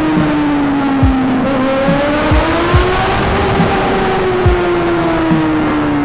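Inline-four sportbike engine running at a steady cruise in a road tunnel, its note drifting gently up and down, with short low thumps about once a second.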